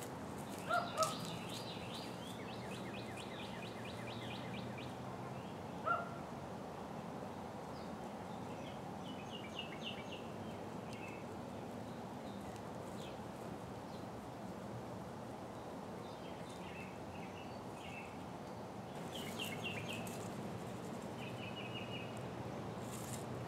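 Songbirds calling and trilling in series of quick chirps over a steady low background hum, with a few short, louder calls near the start and about six seconds in.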